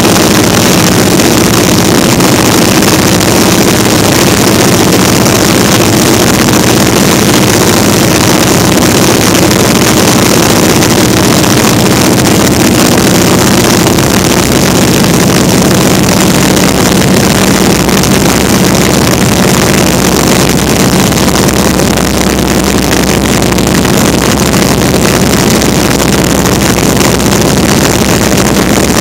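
Vintage open-cockpit biplane in flight: the propeller engine drones steadily under heavy wind rush on the microphone. The engine note changes slightly about halfway through.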